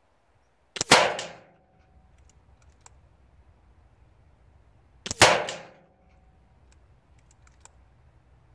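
Two shots from an Air Arms S510 SL Carbine .22 pre-charged pneumatic air rifle, about four seconds apart, each a sharp crack with a short tail; a few faint clicks follow each shot.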